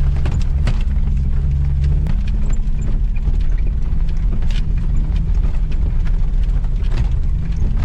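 Manual-transmission Jeep driving slowly on a dirt trail: a steady low engine and drivetrain rumble, a little lower about two seconds in, with frequent clicks and knocks.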